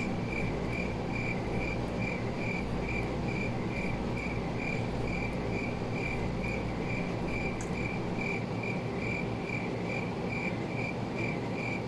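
Cricket chirping steadily, about three short high chirps a second, over a low background hum.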